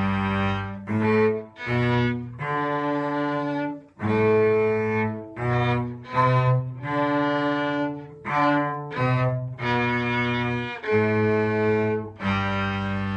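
Cello and violin playing a simple beginner melody together, bowed notes rising and falling in 3/4 time with a few quick pairs of eighth notes, ending on a long held G.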